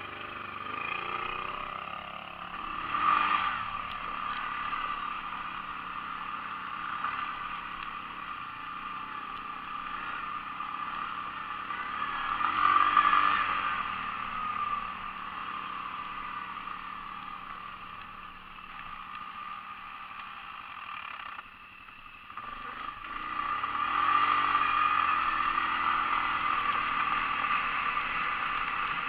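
ATV (quad bike) engines running while riding, rising and falling with the throttle. The sound swells a few seconds in and again about halfway, drops briefly a little over two thirds in, then runs louder and steadier near the end.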